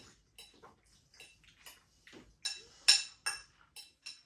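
Metal cutlery clinking and scraping against a dish as food is picked up: a string of short, sharp clicks with a faint ring, loudest twice about halfway through.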